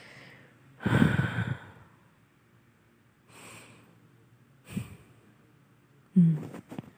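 A person's breathing and huffs: a long, loud sighing exhale about a second in, a soft breath around three and a half seconds, a short huff just before five seconds, and a loud short voiced huff near the end.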